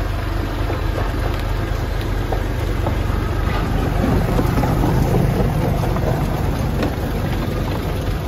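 Diesel engine idling steadily, a low even hum.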